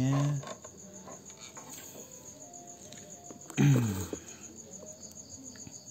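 Crickets chirping steadily, a high, evenly pulsing trill that never stops. A short voice sound from a man cuts in about three and a half seconds in.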